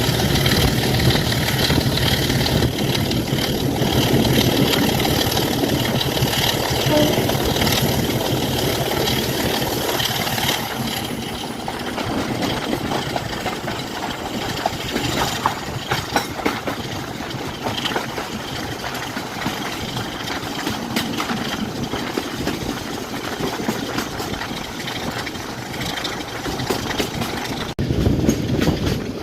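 Class 27 diesel locomotive's Sulzer six-cylinder engine idling. About ten seconds in the sound drops quieter and rougher, with scattered clicks.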